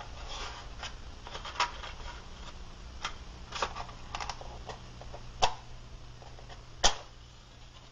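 Irregular sharp clicks and light rustling from small objects being handled, about seven clicks spread over several seconds, the loudest near the end.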